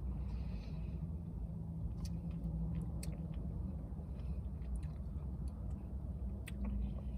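A spoon scraping and clicking against a Blizzard cup, with a few sharp clicks and short scrapes as soft-serve ice cream is spooned out and eaten, over a steady low hum.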